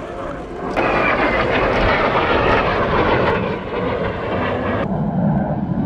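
Kawasaki T-4 jet trainer of the Blue Impulse team flying past trailing smoke, its twin turbofan engines giving a loud, steady jet roar. The roar comes up sharply about a second in and drops off suddenly near the end, leaving a lower rumble.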